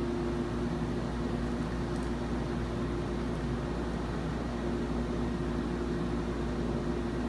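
Jetted bathtub's pump motor running steadily with a low hum, churning the bath water and foam.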